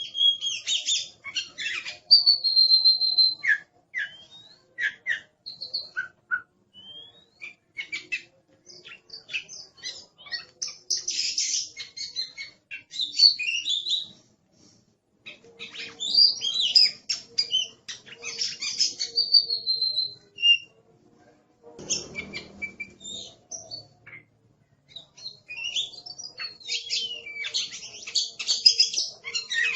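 Oriental magpie-robin (kacer) singing: fast, varied phrases of high whistles, chirps and rattling notes, including a drawn-out whistle about 2 seconds in, broken by short pauses. A brief low rustling noise comes about two-thirds of the way through.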